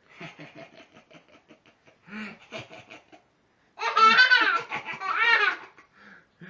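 A toddler laughing: soft, quick giggles at first, then loud, high-pitched squealing laughter from about four seconds in.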